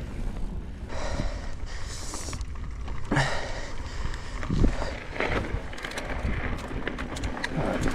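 Mountain bike rolling down a dirt singletrack: steady tyre and wind noise on the helmet microphone, with frequent short clicks and rattles from the bike over bumps.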